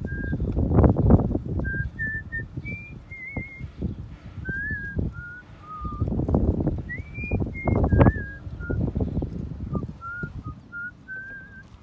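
Gusts of wind buffeting the microphone in loud rumbling swells, with someone whistling a tune in short held notes over them.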